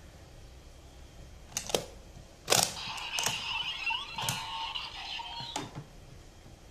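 DX Revice Driver toy belt: sharp plastic clicks as its stamp is pulled out and the belt is handled, followed by a short electronic sound effect of about three seconds from the belt's speaker, with more clicks through it.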